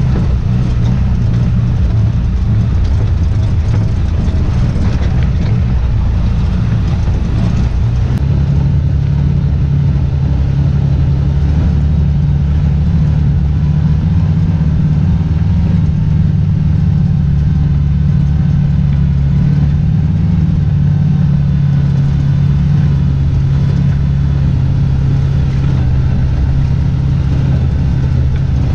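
Engine and drivetrain of a side-by-side off-road vehicle running steadily as it drives a dirt trail, heard from inside its enclosed cab as a loud, even low drone that settles at a constant pitch about a third of the way in.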